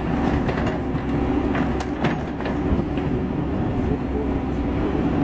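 JCB backhoe loader's diesel engine running steadily under load, with a few sharp cracks and crunches in the first couple of seconds as the bucket breaks up stereo equipment and speaker parts.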